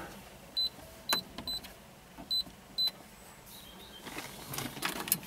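An excavator's immobiliser keypad beeping as the code is keyed in: five short, high beeps one after another over about two and a half seconds, one with a click of the key press.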